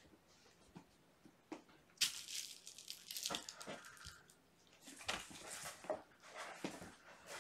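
Kittens at play: a few light taps, then about two seconds in a sudden run of scrabbling and scratching from paws on a cardboard scratcher and carpet, coming in bursts.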